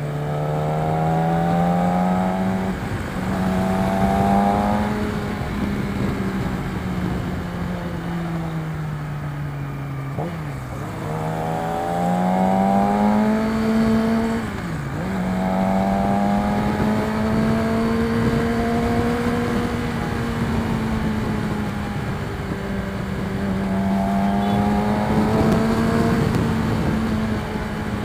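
Yamaha R6 inline-four sport bike engine with an aftermarket Akrapovic exhaust, heard from the rider's position over wind rush. The engine note repeatedly climbs in pitch as the bike pulls through the gears, then drops sharply, with clear drops about ten and fifteen seconds in.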